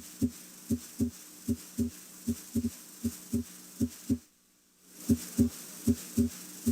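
Normal human heart sounds heard through a stethoscope at the base of the heart (aortic area): a steady lub-dub, each beat a pair of low thumps (S1 then S2) at about 75 beats a minute. At this site S2 is usually the louder of the two. The sound drops out for about half a second about four seconds in, then resumes.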